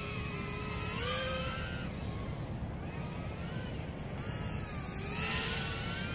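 Kingkong/LDARC ET100 micro brushless quadcopter whining in flight, its pitch rising and falling with throttle over a steady low rumble, with a brief swell of noise near the end. The battery sounds like it's getting a little weak.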